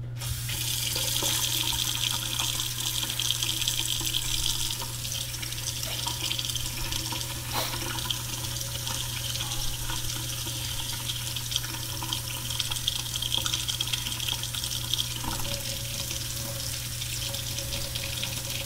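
Water running steadily from a newly installed single-hole pull-down kitchen faucet into the sink, turned on right at the start.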